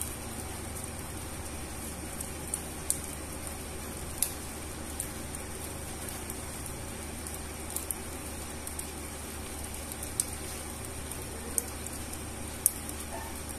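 Steady rain falling on wet concrete, with a sharp single drop hit standing out every second or two.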